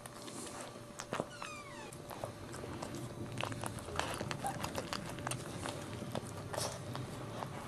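Maltese mother dog licking her newborn puppy, a run of small wet licking clicks, with one short high squeak falling in pitch about a second and a half in, a newborn puppy's cry.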